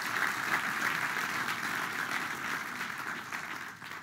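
Large audience applauding, many hands clapping in a dense, even patter that dies away near the end.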